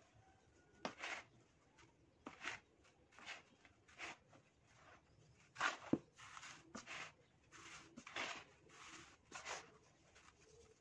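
Dry sand scooped by hand and poured through the fingers into a plastic tub, a soft grainy hiss with each handful, about one a second. There is a sharper knock about halfway through.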